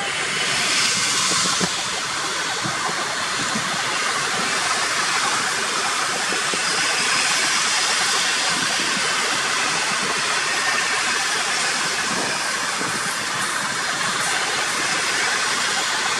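Class 66 diesel-electric locomotive passing close by, its engine loudest in the first two seconds, followed by a long container freight train's flat wagons rolling past with a steady rushing wheel-on-rail noise.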